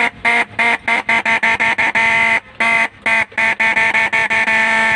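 Minda trumpet electric horn being bench-tested during a repair, sounding a buzzy, steady-pitched tone in a quick run of about twenty short, irregular toots, a few of them held a little longer, as its power lead is tapped on and off.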